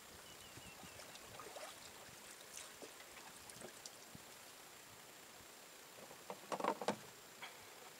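Small knocks of cooking utensils during camp cooking, with a short burst of louder clattering near the end, like a utensil striking and scraping a pan.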